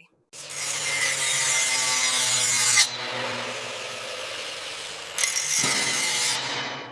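Harsh rasping tool noise, like sawing or grinding, in three stretches: loud for about two and a half seconds, softer for a couple of seconds, then loud again for about a second before fading.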